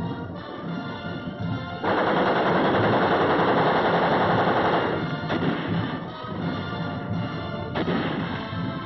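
Battle soundtrack of rapid machine-gun and rifle fire over film score music. About two seconds in, a sudden louder rushing noise starts and lasts about three seconds.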